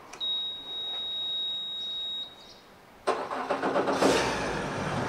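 A steady high beep lasts about two seconds, the warning buzzer sounding as the key is switched on. About three seconds in, the 2020 Suzuki DF140 four-cylinder four-stroke outboard cranks and starts, rises briefly in speed, then settles to a steady idle.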